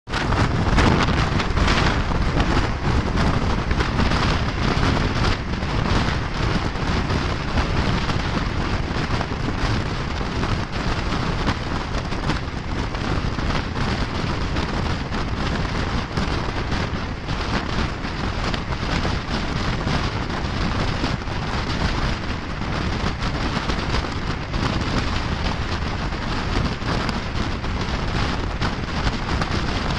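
Wind rushing and buffeting against the microphone held out of a moving passenger train's window, over the steady running rumble of the train. It stays loud and even throughout.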